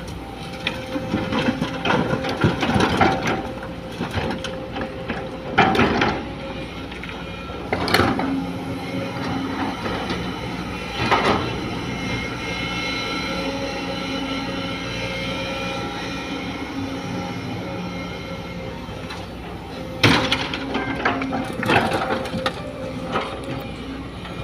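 Sumitomo hydraulic excavator's diesel engine running steadily under load, with sharp metallic clanks and knocks from the bucket and arm as it digs and loads soil, the loudest about six, eight, eleven and twenty seconds in.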